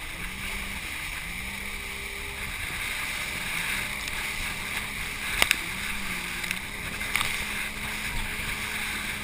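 Wind buffeting the microphone and water rushing past a banana boat towed at speed, with the towing motorboat's engine running underneath, its pitch wavering up and down. A couple of sharp knocks hit the microphone about five and a half seconds in.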